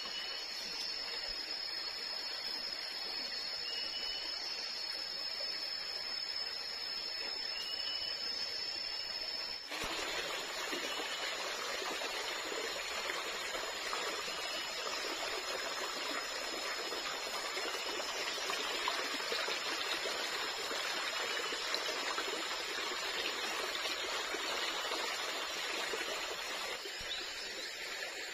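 Rainforest ambience: a steady high insect drone with a few short bird chirps, then, from about ten seconds in, the even rushing of a stream takes over.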